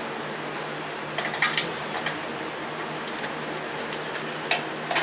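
Small metal parts and tools clinking and tapping during engine reassembly: a quick cluster of sharp clinks about a second in and a single one near the end, over a steady workshop hum.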